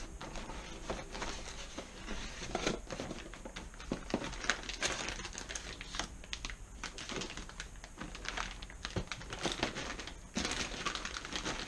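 Clear plastic parts bags crinkling and rustling as they are handled and packed into a cardboard box, with irregular small crackles and clicks.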